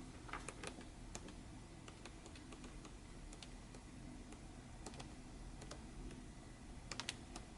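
Faint, scattered light clicks and taps of paper and craft supplies being handled on a tabletop, with a short cluster of clicks near the end.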